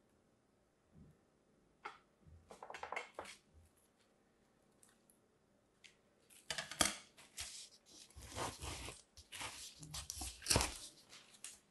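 Kinetic sand crunching and crumbling as a plastic spring toy's coils are pressed into it and dragged through it, with the plastic coils clicking. There is a short spell about two seconds in, then a longer, louder spell from about six and a half seconds to near the end.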